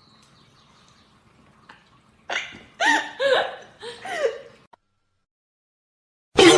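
An animal, likely a pet dog or cat, makes four short calls in quick succession, each rising and then falling in pitch. A brief loud burst of sound cuts in at the very end.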